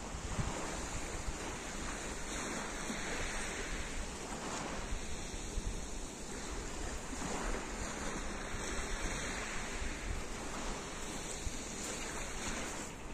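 Small waves washing up and drawing back on a pebble shore, swelling in soft surges every two or three seconds, with wind buffeting the microphone.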